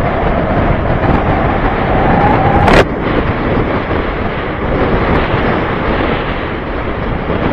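Steady wind rush on the microphone over a Bajaj Avenger 220 motorcycle's single-cylinder engine on the move. The engine note rises for nearly three seconds, then drops abruptly with a sharp click, as in an upshift.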